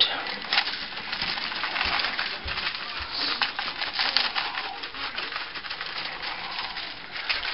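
Dry-rub seasoning being shaken from a shaker container onto a rack of ribs on aluminium foil: a steady run of fine rattling ticks and crackle from the granules in the shaker and falling on the foil.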